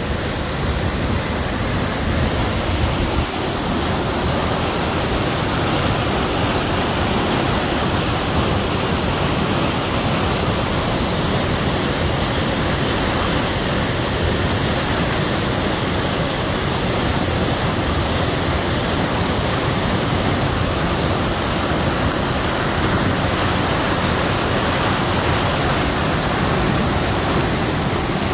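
Swollen, muddy river in flood from winter-rain runoff, pouring over a small dam and rushing through its channel: a steady, loud rush of turbulent water.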